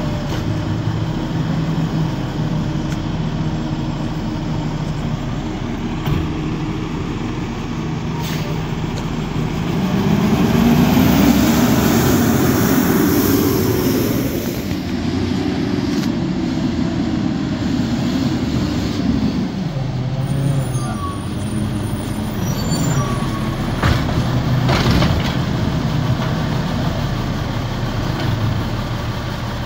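Diesel Autocar garbage truck with a Heil Python automated side-loader running. The engine idles, revs up about ten seconds in as the truck moves off, and settles back to idle a little before twenty seconds. A few sharp knocks come later as the arm handles a cart.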